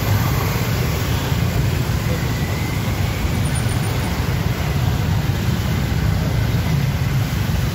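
Motorcycle engines and street traffic running together in a steady low rumble.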